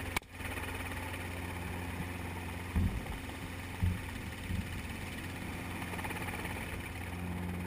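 Steady engine drone, a low even hum, broken by a brief sudden drop-out just after the start and a few short low thumps in the middle.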